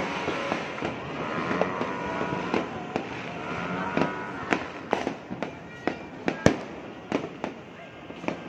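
Fireworks going off: aerial shells bursting in a string of irregular sharp bangs and pops, the loudest about six and a half seconds in.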